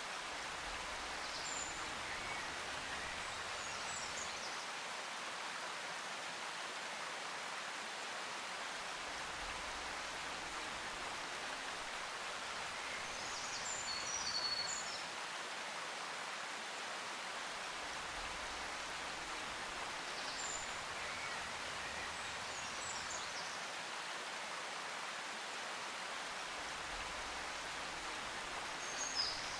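Steady rushing noise like flowing water or rain, with short high bird-like chirps a few times and a soft low rumble that swells and fades every several seconds.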